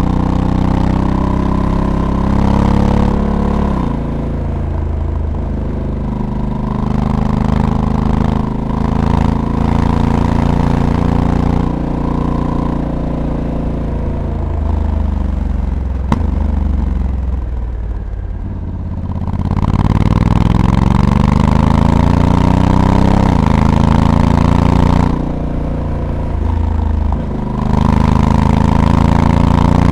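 Honda Africa Twin's 1084 cc parallel-twin engine under way. The revs climb and drop sharply at the dual-clutch gearshifts, fall away steadily as the bike slows around the middle, then rise again under acceleration, with two more quick shifts near the end.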